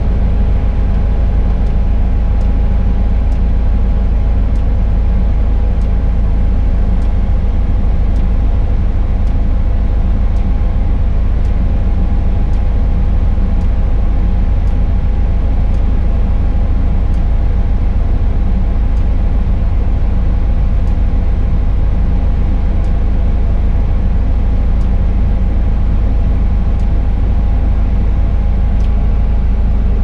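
Tadano 180G-5 crane's engine and hydraulics running steadily, heard from inside the operator's cab as a deep, unchanging rumble with a steady hum over it. Faint ticks come every second or two.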